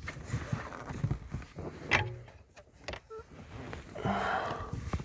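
Hand work up under a car's dashboard: irregular small knocks, scrapes and rustling as a steering column mounting bolt is fitted, with a sharp click about two seconds in.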